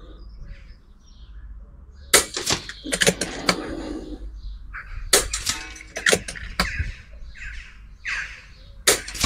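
Air rifle shooting a string of shots: sharp cracks and clicks about two seconds in, a cluster between five and seven seconds, and another near the end, with small birds chirping between them.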